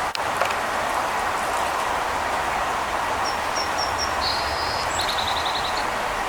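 Steady rushing background noise with small birds calling over it: four short high chirps about three seconds in, then a buzzy trill and a quick run of notes.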